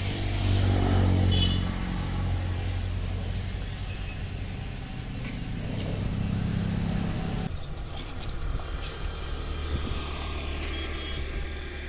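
A motor vehicle engine running, a steady low hum, whose sound changes abruptly about seven and a half seconds in.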